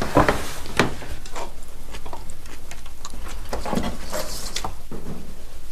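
Irregular light clicks and taps of chopsticks and bowls at a family meal, over a steady low hum.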